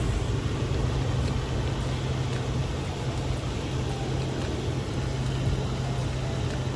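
Park water fountain splashing steadily into a pond, with a steady low hum underneath.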